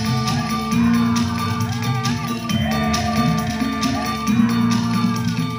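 Band music from a rehearsal, played loud through a large outdoor PA system of line-array speakers and subwoofers, with a wavering melody line over steady sustained tones.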